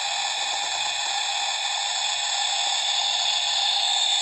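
Toy kitchen stove's electronic cooking sound effect played through its small speaker: a steady hiss, like frying, with faint electronic tones in it, that marks the timed cooking cycle.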